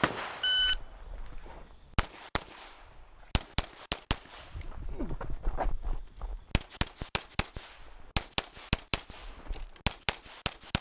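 A shot timer's electronic start beep, then a semi-automatic pistol firing about twenty shots in quick pairs and strings, with a pause of about two seconds between the first six shots and the rest.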